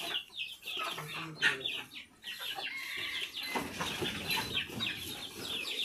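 Chickens clucking, many short calls one after another.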